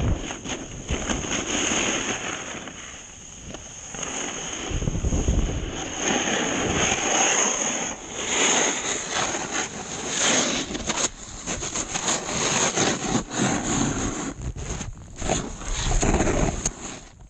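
Wind rushing over the camera's microphone as a snowboard rides through deep powder, with the board hissing over the snow. The rush eases briefly about three seconds in and turns choppy and gusty in the second half.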